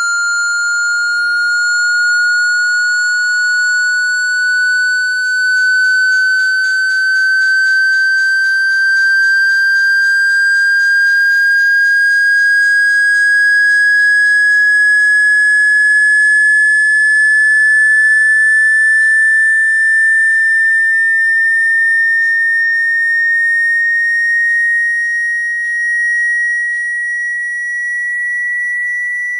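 Loud, high-pitched electronic sine-wave tone, a speaker water-ejection tone, gliding slowly and steadily upward in pitch.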